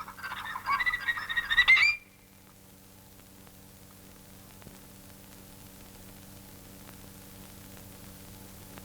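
Old animated film soundtrack: for about two seconds, high squeaky cartoon calls that bend in pitch and end in an upward glide. After that there is only faint hiss and a steady low hum.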